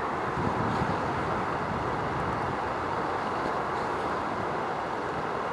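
Stanier Black Five steam locomotive approaching in the distance: a steady rumble with no clear exhaust beat, under an even hiss.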